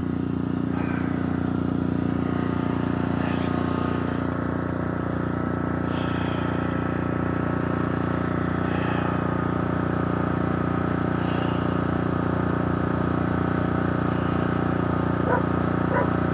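Steady hum of an idling engine, unchanging in pitch and level throughout, with a few faint short high chirps over it.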